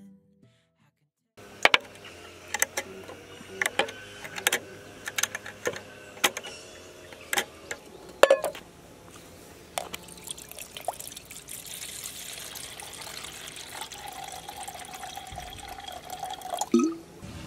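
Sharp clinks and knocks as camping cookware is handled and a SOTO pot is set down on a board. Then water is poured from a plastic bottle into the pot for the last several seconds.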